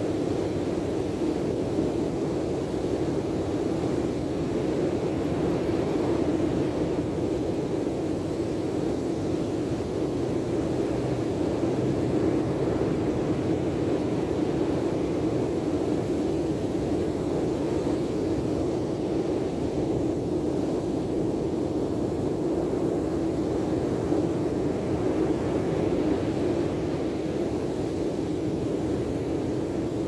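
Steady, even roar of sea surf breaking on a sandy beach, with no distinct surges from single waves.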